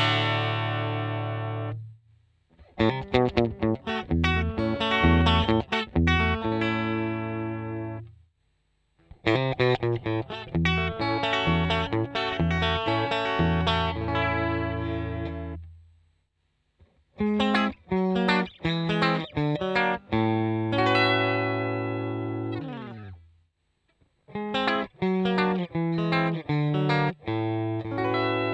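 Electric guitar played clean through a Fender amplifier and its Kemper profile, taken in turn for comparison. It plays several short phrases of picked notes, each ending on a ringing chord that fades, with pauses of about a second between them.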